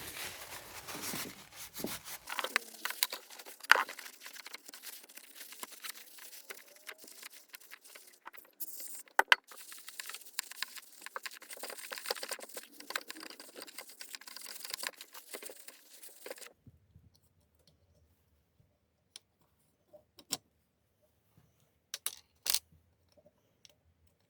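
Small metal motorcycle carburetor parts and hand tools being handled and taken apart on a bench: a busy stretch of rustling with many sharp clicks and knocks. It stops abruptly about two-thirds of the way in, leaving only a few isolated clicks.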